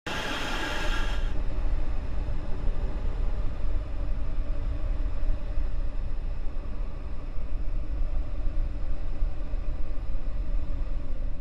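A steady low rumble that starts abruptly, with a brief high hiss over its first second.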